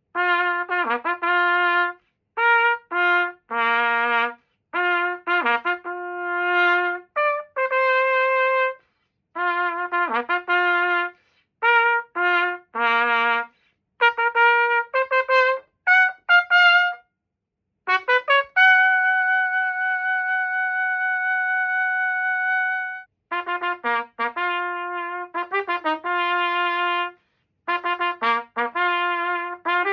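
Yamaha YTR-2330 trumpet played in short phrases of separate notes, with brief silent gaps between phrases. Past the middle, one long high note is held steady for about four seconds.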